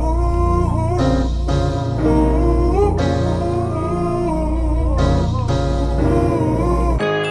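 A melodic sample loop for a Memphis-style rap beat: a gliding, guitar-like lead line with bending notes over deep, sustained bass notes. Near the end it cuts off abruptly and a different loop of bell-like tones begins.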